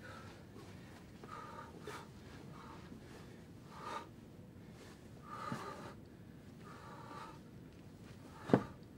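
Short, forceful breaths repeated every second or so during solo martial-arts kicks and strikes, with one sharp thump near the end, the loudest sound.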